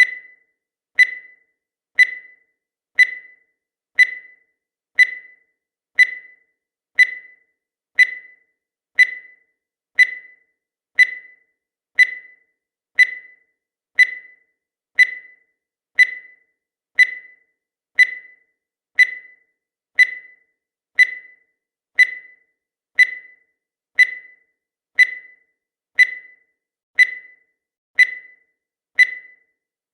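Countdown timer beep sounding once a second: a short high tone that dies away quickly, evenly spaced, marking each second counted down.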